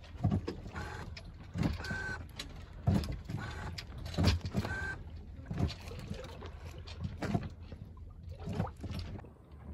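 Becalmed sailboat rocking on a light swell: irregular creaks, short squeaks and knocks from the hull and gear about once a second, over a low steady rumble.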